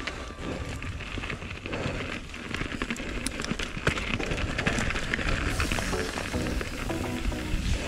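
Mountain bike riding down a dirt trail: tyres crackling over dirt and rocks, with many small rattles and knocks from the bike, under background music.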